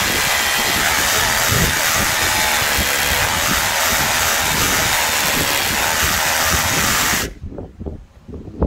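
Einhell Herocco 18V brushless cordless rotary hammer drilling into reinforced concrete in hammer mode, a steady loud hammering. It cuts off abruptly about seven seconds in, leaving low knocks and a brief loud burst just before the end.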